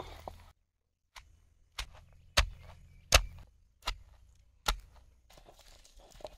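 About five sharp knocks at a steady pace, roughly one every three-quarters of a second: a bowl being tapped against a stone wet grinder (aattukal) to empty soaked chana dal into it.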